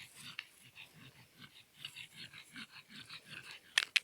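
A small dog panting quickly, about three breaths a second, followed near the end by two sharp clicks close together.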